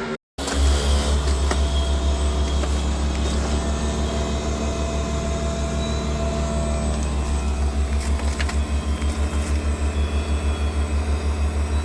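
Heat pump outdoor unit running in defrost mode: a loud, steady, deep mechanical hum with a fast regular pulse, the compressor working to melt the ice off the outdoor coil.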